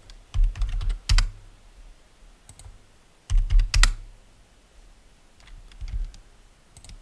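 Computer keyboard being typed on in two short bursts, about a second in and again after three seconds, each keystroke a sharp click with a dull low thud, followed by a few faint clicks near the end.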